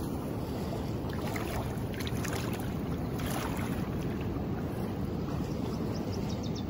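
Steady low rushing of river water running below a falls, with a few faint light splashes about a second or two in.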